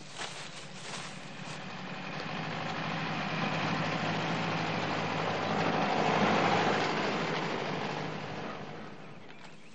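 A car driving past: its engine hum grows louder to a peak about six seconds in, then fades away. A few running footsteps sound in the first second or so.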